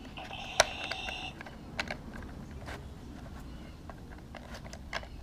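Plastic spinning wheel of a toy playset turned by hand, clicking irregularly: one sharp click about half a second in, then scattered lighter clicks. A brief ringing tone sounds during the first second.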